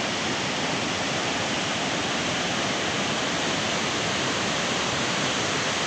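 Steady, even rush of a mountain stream in flash flood.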